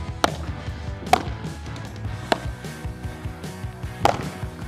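Padel ball struck with padel rackets in a lob-and-volley feeding drill: four sharp pops roughly a second apart.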